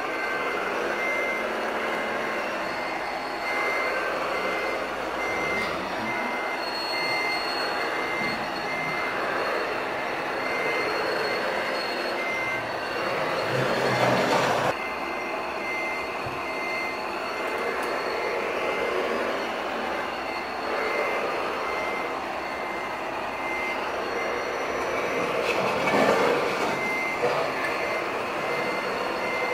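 Reversing alarm of a radio-controlled construction model beeping at an even pace, about three beeps every two seconds, over a steady mechanical running noise. About halfway through, a louder burst of noise cuts off sharply, with a smaller one near the end.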